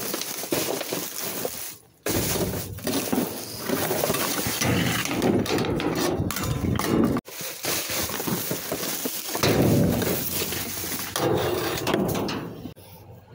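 Plastic trash bags rustling and shifting as they are pulled around in a dumpster, with knocks and clinks of hard items among them. The sound breaks off abruptly twice.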